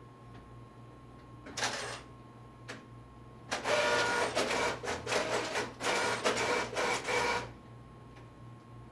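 Epson B500DN inkjet printer feeding and printing a plain office sheet. A short whir comes about one and a half seconds in, then a click. About four seconds of motor whirring follow in several quick passes as the page goes through and is ejected.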